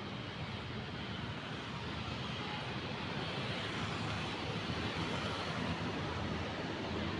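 Steady hum of city road traffic, an even rumble with no single vehicle standing out, growing a little louder about halfway through.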